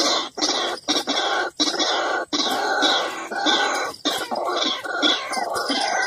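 White-breasted waterhens calling: a loud, continuous run of rapidly repeated harsh notes, broken by a few brief pauses.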